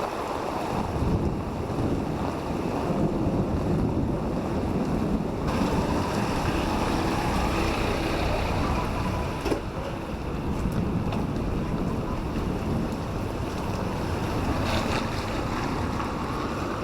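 Steady rush of rain and wind buffeting the microphone, with a low rumble underneath.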